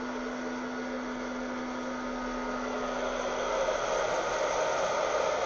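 Wear-Ever Popcorn Pumper hot-air popper running steadily, its fan blowing hot air up through green coffee beans as they roast and begin shedding their chaff, before first crack. A low hum under the whoosh fades out a little past the middle.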